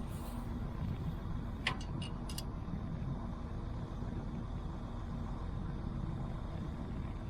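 Farm tractor engine running steadily, with a few short metallic clinks about two seconds in.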